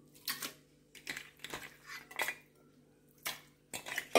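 Raw mutton pieces dropped by hand into an aluminium pressure cooker, with a string of about eight irregular metallic clatters against the pot and the steel colander bowl.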